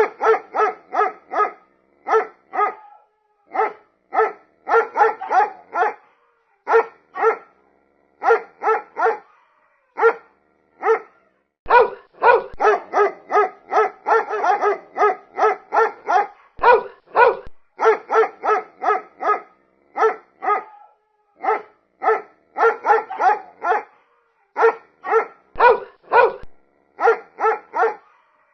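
A dog barking repeatedly: short, sharp barks in quick runs of several at a time with brief pauses between, coming thickest in the middle.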